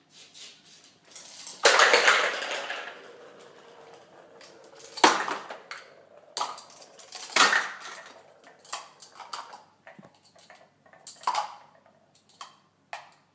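Clattering of hard objects knocking together. There is a loud crash about two seconds in, sharp knocks around five and seven seconds, and smaller clicks in between.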